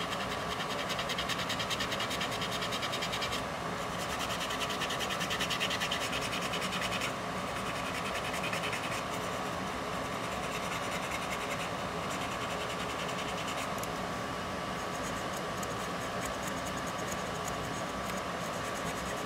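A small scrubbing brush tool scratching rapidly along the painted edge of a plastic model railcar, rubbing the paint down toward bare plastic. The scratching is strongest in the first seven seconds or so and lighter after that, over a steady faint hum.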